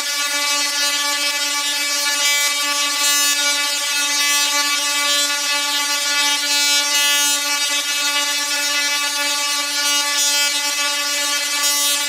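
Large dual-resonant solid-state Tesla coil (DRSSTC) firing, its sparks giving a loud, steady buzz at one fixed pitch set by the interrupter. A crackling hiss rides on top and grows louder now and then as the arcs strike out.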